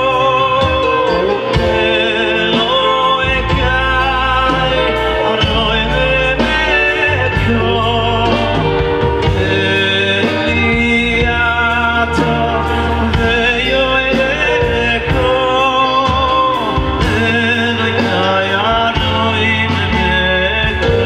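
Male singer singing into a microphone with a live band backing him, including electric guitar and drum kit. The voice moves in wavy, ornamented lines over regular drum hits and a strong bass.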